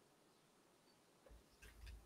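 Near silence with a faint hiss, then soft low thumps in the last second.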